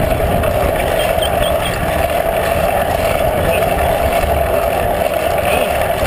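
Steady wind rushing over the microphone of a camera mounted on a moving bicycle, with a continuous low road rumble from the ride.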